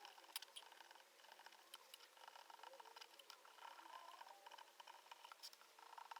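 Faint, irregular crackling of burning wood: scattered small snaps and pops over a soft hiss.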